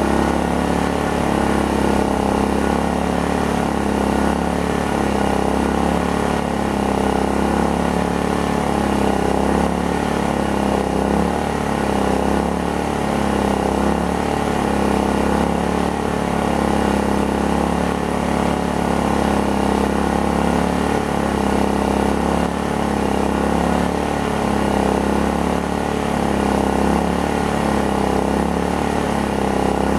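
Predator inverter generator's small four-stroke engine running steadily just a little above idle, under a light load of about 600 watts from an air conditioner and refrigerator.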